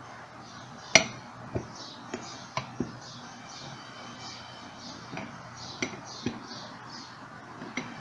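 Scattered sharp metal clicks and clinks, the loudest about a second in, as a new bushing and its retaining cap are seated and closed by hand in a pedestal fan motor's steel end cap.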